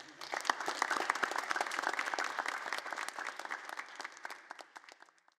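Audience applauding: many hands clapping at once, thinning out and dying away over the last second or so.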